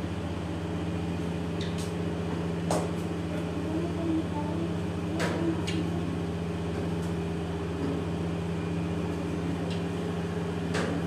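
Automatic roti-making machine with an electric motor, running with a steady hum, with a few light clicks over it.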